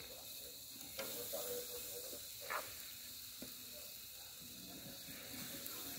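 Marinated chicken sizzling on a metal grill grate over hot charcoal: a steady hiss, with a single sharp click about a second in.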